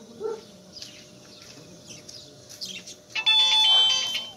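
A few faint, short high-pitched puppy whimpers, then about three seconds in a loud chiming tune of steady bell-like tones cuts in and stays loud.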